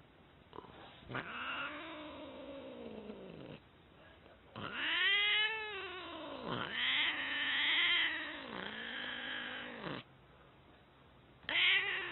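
A domestic cat yowling: about five long, drawn-out calls in a row, each rising and then falling in pitch, with short breaks between them.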